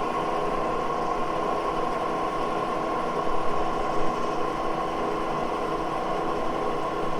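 Moore No. 2 jig borer's spindle running steadily at about 729 RPM while it bores a dowel pin hole: an even machine hum with a constant high tone over it.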